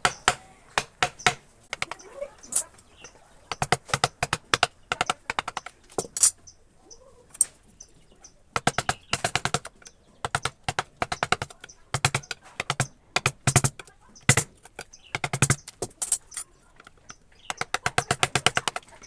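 Wood-carving chisel struck with a mallet in quick runs of light, sharp taps, with short pauses between the runs.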